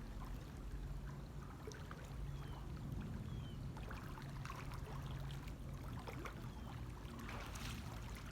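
Pool water splashing and sloshing as a person swims, with irregular small splashes over a steady low hum.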